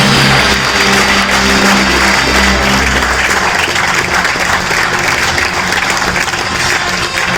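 Audience applauding, with music playing underneath; the music's low notes are strongest in the first three seconds.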